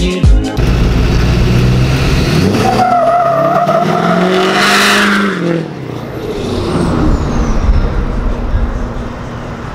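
Lifted GMC Sierra Denali HD pickup pulling away, its engine revving up to a peak about five seconds in, then easing off and fading as the truck drives off down the road.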